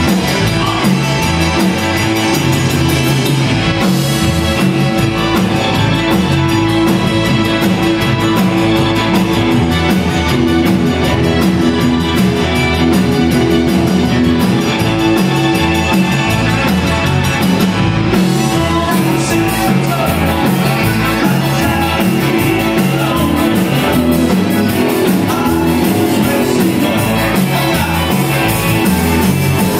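Live band playing a Tex-Mex rock number: electric guitars, drum kit and keyboard over a steady beat.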